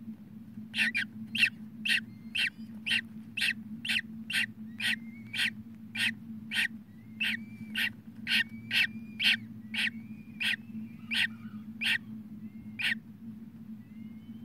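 Newly hatched peregrine falcon chick peeping, short sharp calls about two a second that stop near the end, over a steady low hum.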